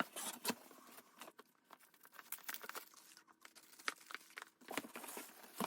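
A delivery box being opened by hand: irregular crinkling, rustling and sharp taps of cardboard and packing paper.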